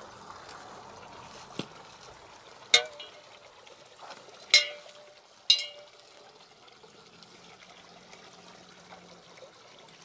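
Water trickling from a fountain spout into a stone trough, faint and steady. Three sharp clicks with a short ring stand out, the first about three seconds in and two more about a second apart after it.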